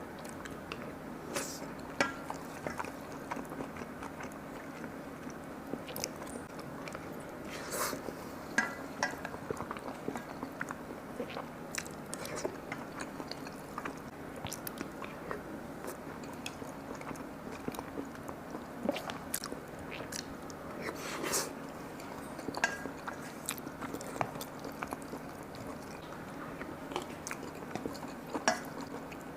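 A person eating fried chicken with a slightly crispy coating: chewing, with scattered sharp crunching bites, over a steady low hum.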